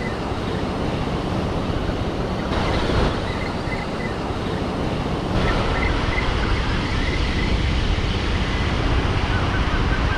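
Ocean surf washing up the beach, with wind rumbling on the microphone.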